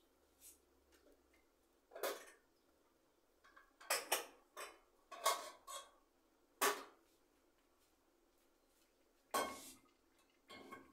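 Dishes and kitchen utensils knocking and clinking, about nine separate short clatters with pauses between them.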